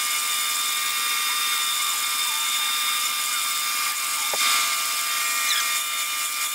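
Belt sander running with a steady whir while a small steel plate is held against its abrasive belt, polishing the metal flat. A short knock sounds about four seconds in.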